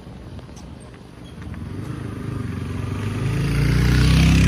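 A motor vehicle's engine drawing closer, getting steadily louder over a few seconds.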